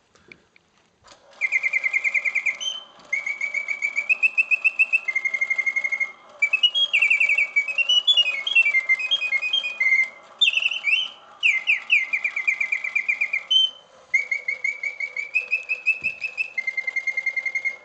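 Antique Bontems mechanical singing bird cage playing its song: rapid warbling trills from its bellows-blown whistle, stepping and gliding up and down in pitch in phrases broken by short pauses, over the soft steady whirr of the clockwork and bellows. The song starts about a second in.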